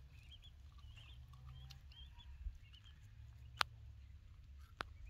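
Faint small birds chirping repeatedly in short high notes over a steady low rumble, with two sharp clicks in the second half.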